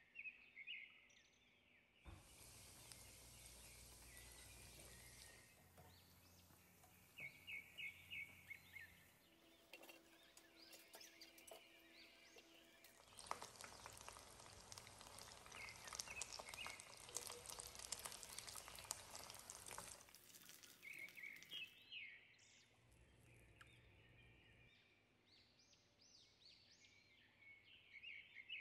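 Hot oil sizzling and crackling around breaded chicken cheese pockets frying in a pan. It comes in several stretches, loudest with dense popping in the middle. Faint bird chirps are heard in the quieter gaps.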